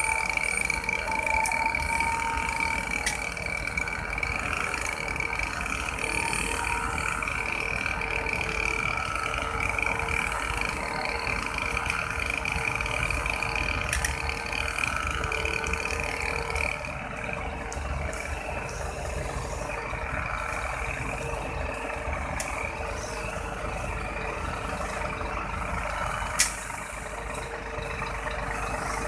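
Scania P380 heavy-haul truck engine running at low, steady revs as it slowly pulls a heavily loaded multi-axle trailer, with a steady high whine over it. One sharp click near the end.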